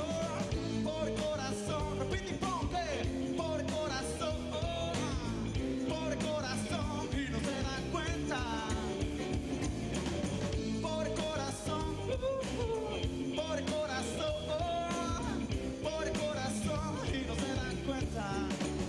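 Live band playing a passage of a song without lyrics: acoustic and electric guitars with drums, a melodic lead line gliding above the steady accompaniment.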